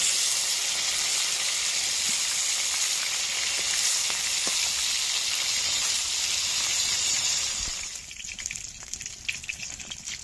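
Rohu fish pieces frying in hot oil in a pan: a steady, dense sizzle that falls away sharply about eight seconds in to a quieter sputter of scattered crackles and pops.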